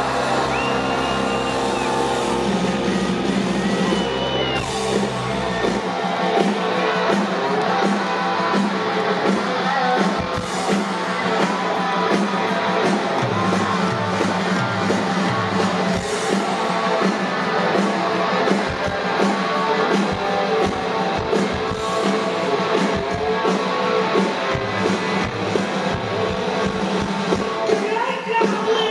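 Live rock band playing at full volume: electric guitars over a steady drum beat. The deepest bass drops away about six seconds in.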